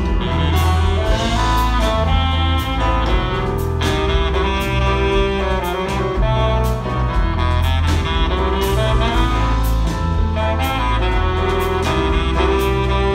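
A band playing an instrumental passage: a melody of held notes over a steady bass line and drums.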